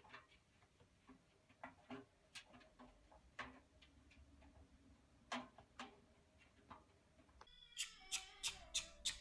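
Faint, scattered clicks and taps of a kitten's paws and claws on the steel drum of a front-loading washing machine, with a quicker run of clicks near the end.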